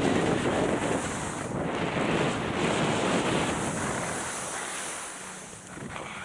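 Wind rushing over the camera microphone, mixed with skis hissing and scraping over packed snow during a downhill run. The rush eases off about five seconds in.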